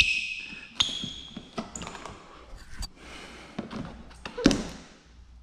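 A squeegee and fingers working wet paint protection film on a car's bumper and headlight: a few short, high squeaks, the first and loudest right at the start, among light taps and handling noises, with a single thump about four and a half seconds in.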